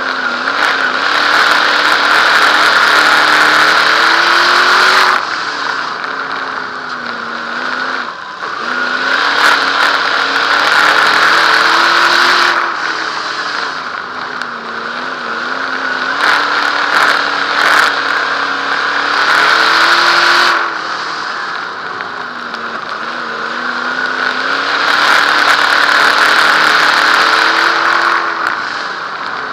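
Dirt modified race car's V8 engine, heard from inside the car, at racing speed: it runs hard at full throttle down each straight and drops back as the driver lifts for the turns, rising and falling about every seven to eight seconds.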